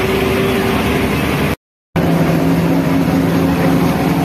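Engine and road noise of a moving bus, heard from inside the cabin. It cuts out to silence for a moment about one and a half seconds in, then continues as a steady low engine drone.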